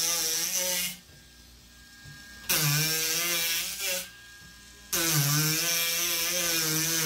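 Ryobi 4V cordless power carving tool (FVH51K) cutting wood with a gouge bit, in three spells of a buzzing whirr with quieter gaps between. Its pitch wavers and dips as it is pushed into the wood.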